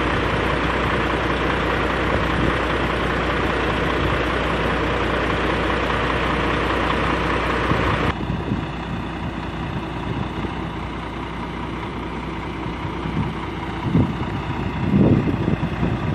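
Heavy diesel engine of a loaded Volvo logging truck idling, loud and steady. About halfway through it drops abruptly to a quieter, steady idle, with a few brief louder surges near the end as the truck moves off.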